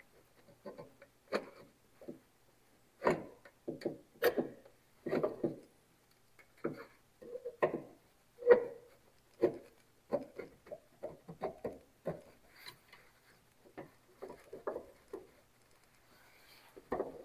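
Ford dual-tone horn assembly and its bracket knocking, clicking and scraping against the grille and surrounding parts as it is wiggled up and out by hand: irregular light taps, at times several in quick succession.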